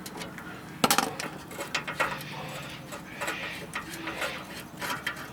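Socket wrench on an extension bar working the sway bar link's lower 14 mm bolt: irregular metallic clicks and clinks, with a sharper clank about a second in.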